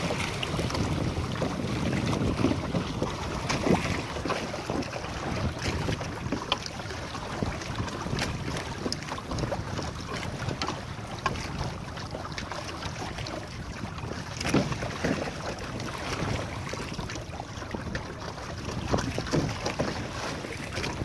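Water slapping and splashing against the hull of a Hobie sailing kayak trimaran under way in a chop, with irregular sharper splashes now and then, over steady wind noise on the microphone.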